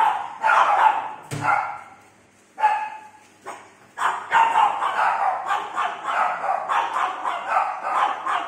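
Small dog yapping: a few sharp, high-pitched barks, a lone bark, then a quick run of about three barks a second.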